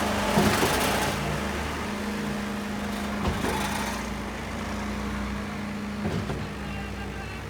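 Concrete pump and truck mixer running: a steady diesel engine drone, with a rushing surge in the first second and short knocks about three seconds apart.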